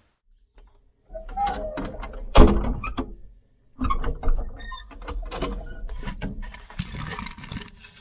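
Metal clanks, knocks and scrapes of a wood-burning firebox's door being worked open, with the loudest knock about two and a half seconds in. Near the end comes the scrape of a split oak log being shoved into the firebox.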